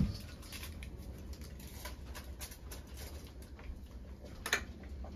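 Light handling sounds: a soft thump at the start, then faint scattered ticks and rustles, with one sharper click about four and a half seconds in.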